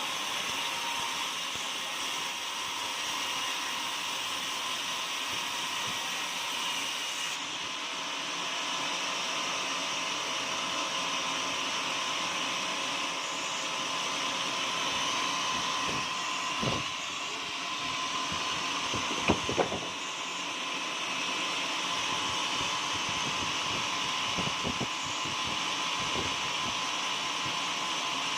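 Portable sawmill running steadily as its saw cuts through an oak log, with a few sharp knocks about two-thirds of the way through.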